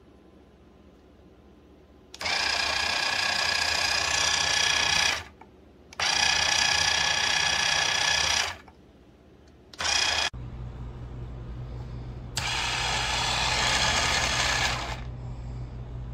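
Small MIGECON electric chopper's motor whirring in bursts of two to three seconds, switched on and off at its push button: three runs with a brief blip between, each with a steady high whine. A steady low hum sets in about ten seconds in and runs under the last burst.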